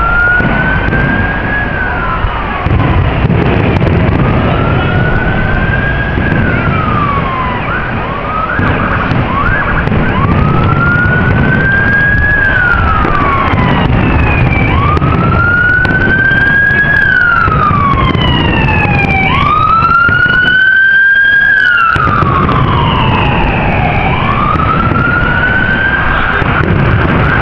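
Emergency vehicle siren wailing, its pitch rising and falling in long sweeps about every four to five seconds, over a steady low rumble.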